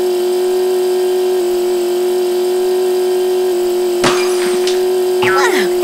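Engine sound effect for a toy truck driving: a steady hum held at one pitch without revving. A sharp click comes about four seconds in, and short high chirps begin near the end.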